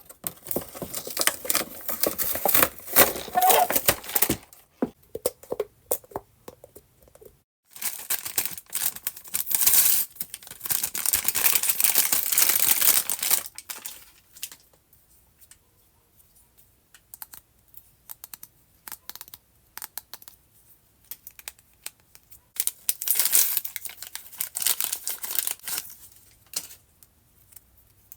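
Toy packaging being torn open and crinkled by hand, in three bouts of tearing and rustling with quieter handling between.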